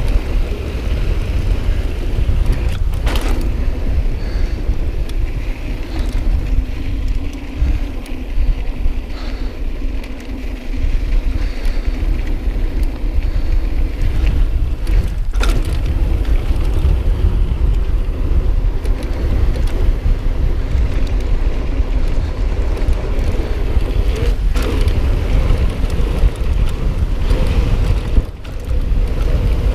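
Mountain bike rolling along a dirt trail, tyres and frame rattling over the ground, with heavy wind buffeting the camera microphone. A few sharp knocks come through, at around three, fifteen, twenty-four and twenty-eight seconds.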